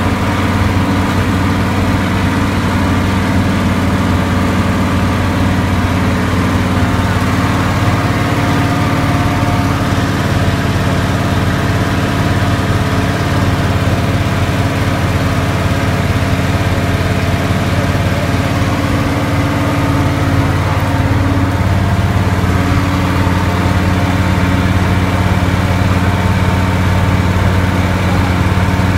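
Engine of an old city bus heard from inside the passenger cabin, running steadily with a low drone; its pitch dips and changes about two-thirds of the way through.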